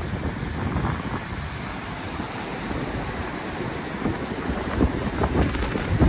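Rough sea surf washing over a flat rock shelf at the shoreline, with strong wind buffeting the microphone in low rumbling gusts.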